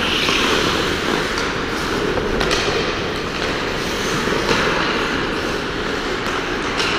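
Hockey skates scraping and carving across rink ice, a steady hiss and rumble, with a few sharp knocks from sticks and puck.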